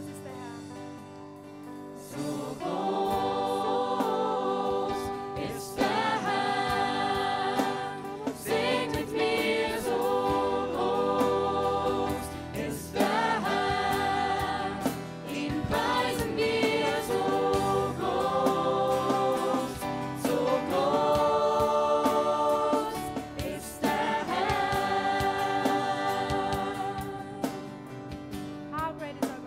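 Choir of young men and women singing a worship song into microphones, soft for the first couple of seconds and then fuller.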